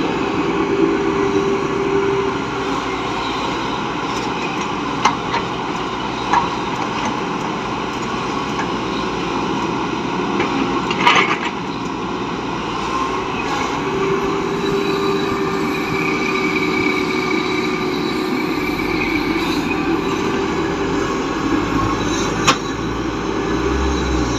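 Excavator engine running steadily, with a handful of sharp knocks, the loudest about halfway through.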